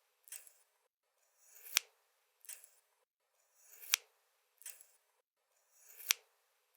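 A pair of scissors opened and closed again and again, about every two seconds. Each stroke is a short rustle as the blades open, then a sliding swell that ends in a sharp snap as they shut, three times in all.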